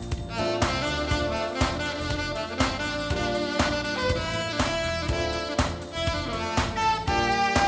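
Jazz instrumental: a horn melody of held notes over a drum kit keeping a steady beat, about two beats a second.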